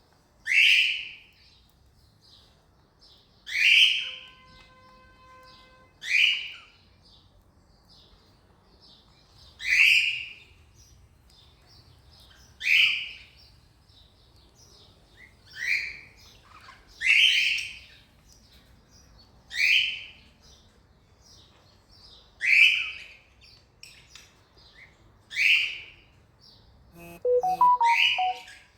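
Cockatiel giving short, loud contact calls over and over, about one every three seconds. Near the end a brief run of lower, pitched notes sounds.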